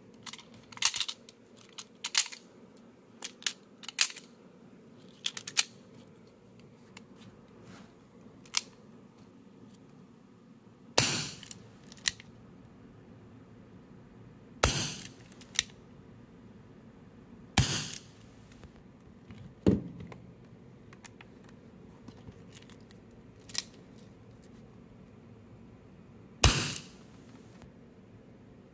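WG 731 M36 CO2 airsoft revolver being handled: a quick run of small metallic clicks as BB shells go into the cylinder and it is closed, then four louder, sharp snaps from the revolver, spaced several seconds apart.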